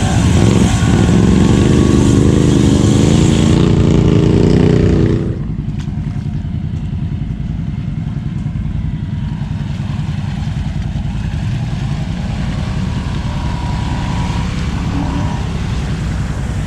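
Off-road vehicle engine running hard, then dropping back about five seconds in to a steady, quieter low rumble.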